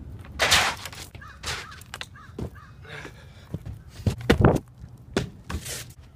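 Feet of parkour runners landing, thudding and scuffing on wooden ledges and sand, a string of sudden impacts with short scraping bursts, the heaviest thuds about four seconds in.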